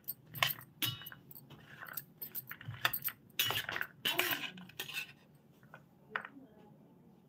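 A metal spoon clinking and scraping against a steel plate while tossing a salad of sprouted chickpeas, mung beans and chopped carrot and onion. Irregular clicks, busiest in the first five seconds, sparser near the end.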